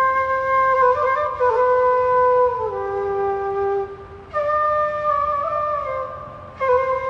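Afghan tula, a side-blown bamboo flute, playing a slow melody of long held notes that step downward through the first phrase. It breaks off briefly about four seconds in and again near the end, each time between phrases.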